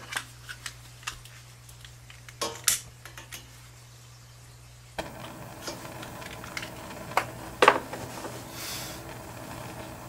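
Sharp metallic clicks and clinks as a gas furnace pilot burner is lit. About halfway through, a steady soft hiss sets in as the pilot flame catches and keeps burning, with a few more clicks over it.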